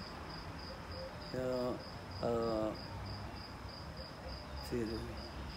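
An insect chirping steadily at a high pitch, about three chirps a second, with three short vocal sounds from a man's voice, the loudest about two seconds in.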